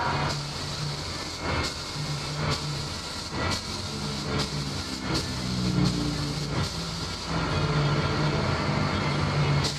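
Gravity-feed paint spray gun hissing with compressed air in repeated short spurts as paint is sprayed onto a car body panel, over a steady low hum.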